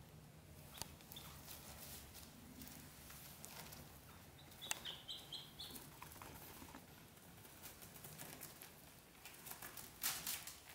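Faint rustling and scratching of a kitten and ducklings shifting about in a wicker basket, with a quick run of four or five high duckling peeps about five seconds in and a louder rustle near the end.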